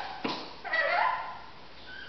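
Rainbow lorikeet giving one short squeaky call of about half a second, just after a brief click.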